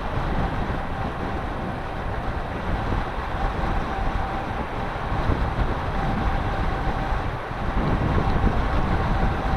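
Wind buffeting the microphone, with a faint steady high tone running underneath.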